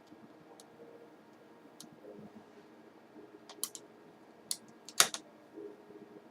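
Sharp plastic clicks from handling the reassembled laptop: a few light clicks, then a quick cluster in the second half, the loudest about five seconds in.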